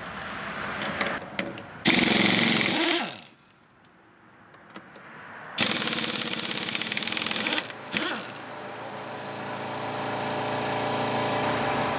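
Stubby AirCat air impact wrench hammering on a car's lug nut in two bursts, the second about two seconds long. Then a steady motor hum sets in and slowly grows: the Husky Silent Flow compressor kicking back on as the tank pressure drops.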